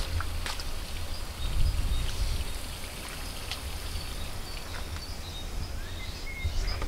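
Outdoor ambience: an uneven low wind rumble on the microphone, with a few small sharp clicks and faint short high chirps.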